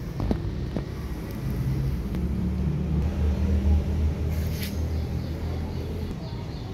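Low vehicle rumble, growing louder in the middle and fading near the end.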